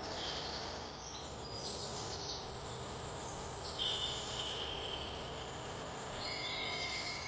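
Wild birds chirping and calling in short high bursts a few times, over a steady low background hiss; a steady high-pitched tone, like an insect's drone, sets in near the end.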